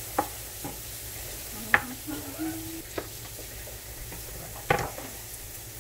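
A chef's knife chopping cooked chicken on a cutting board: a handful of sharp, irregular knocks against the board. Under it runs a steady sizzle from food frying in a pan on the gas burner.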